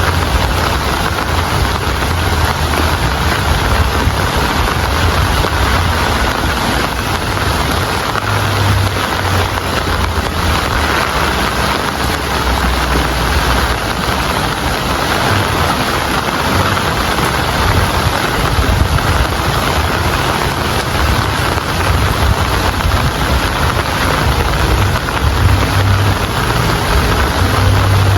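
Steady heavy rainfall, a dense even hiss, with a low rumble underneath.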